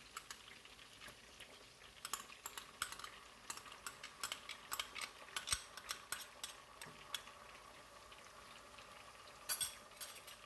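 A spoon stirring and scraping in a pot, with irregular clicks of the spoon against the pot over the light sizzle of frying oil. Tomato paste is being stirred into onions frying in oil.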